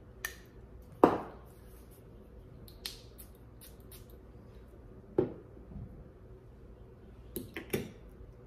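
A perfume spray bottle and its cap being handled: a few separate clicks and knocks, the loudest about a second in, with a quick cluster of three short sounds near the end.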